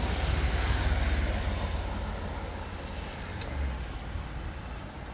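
Roadside outdoor noise: a low rumble with a hiss over it that swells in the first second or so and then eases off.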